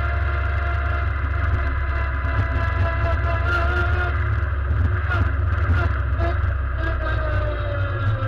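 Competition car's engine running at low revs while the car rolls slowly, a steady low drone heard from inside the stripped, roll-caged cabin.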